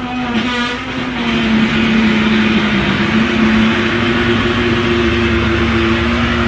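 Loud, steady mechanical drone of an unidentified machine: a held buzzing tone under a harsh, rasping noise, described as somewhere between a bad fart, fingers on a chalkboard and an annoying circular saw.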